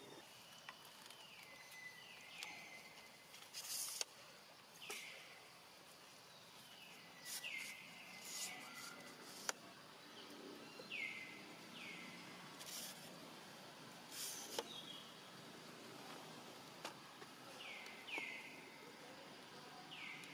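Faint outdoor ambience with repeated short high animal calls, each sliding down in pitch and ending on a brief steady note, coming singly or in pairs every second or two. A few short hissing rustles are mixed in.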